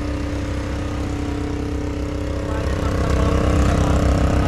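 ATV engines idling steadily, the sound growing louder about three seconds in.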